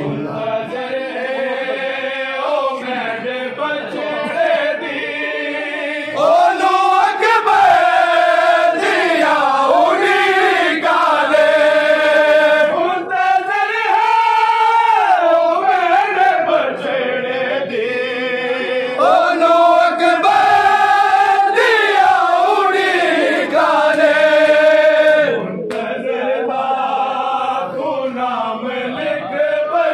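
A group of men chanting a noha, a Shia lament for Karbala, in unison: long drawn-out lines that rise and fall in pitch, with no pause throughout.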